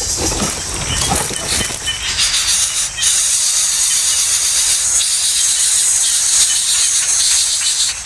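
Coucal nestlings hissing as they beg, a loud, steady, high-pitched hiss that grows stronger about three seconds in. A low rumble sits under it in the first two seconds.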